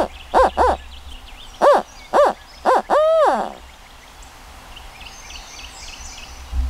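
Owl hooter locator call blown by a turkey hunter, imitating a barred owl: a rhythmic run of short hoots ending in one long, drawn-out note that falls away about three and a half seconds in. It is the hoot hunters use to make a gobbler shock-gobble and give away where he is.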